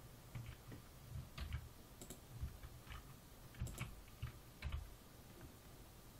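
Faint, irregular clicks and taps of a computer keyboard and mouse, a dozen or so scattered unevenly with short gaps between.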